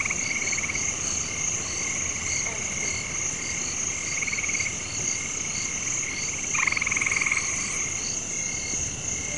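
Night chorus of frogs and insects: a steady high-pitched insect drone, a short call repeating about twice a second, and a frog's rattling trill that comes and goes, loudest for about a second around two-thirds of the way through.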